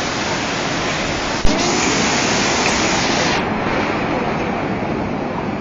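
Fast muddy floodwater rushing down a street in flood: a steady, loud rushing noise, with one sharp knock about a second and a half in. The sound turns duller a little past halfway.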